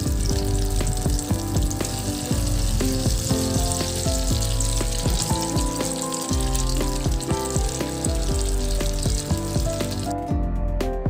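Grated potato and cheese patties sizzling in hot oil in a skillet, under steady background music. The sizzle cuts off suddenly about ten seconds in, leaving only the music.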